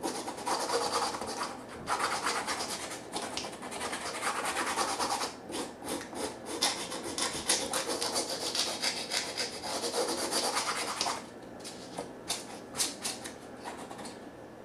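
Hand file rasping back and forth over the hard plastic lid of a case, filing the moulded ribs down flat. The strokes are rapid and continuous, then become lighter and more scattered for the last few seconds.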